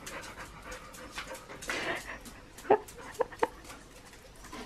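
A dog whining: three short whines, the first about two and a half seconds in.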